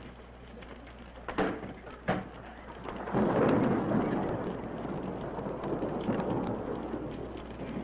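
Two sharp knocks about a second and a half in, then a long rumble of thunder over steady rain from about three seconds in, loudest at its start and then easing.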